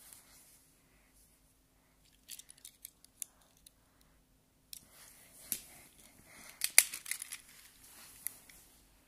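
Small toy cars handled close to the microphone: a few light plastic clicks two to three seconds in, then a denser run of clicks, rattles and rustling from about five seconds, loudest near seven seconds.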